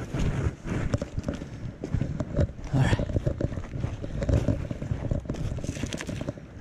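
Wind buffeting the microphone: an irregular, gusty rumble with many small knocks.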